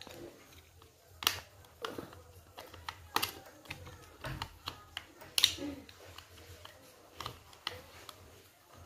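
Flathead screwdriver tip clicking and scraping against a plastic wall-switch cover as it is levered in the cover's small slot to pop it off: scattered sharp clicks, the loudest a little past halfway.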